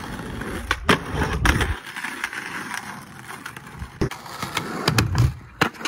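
Skateboard wheels rolling on asphalt, with several sharp clacks from the board.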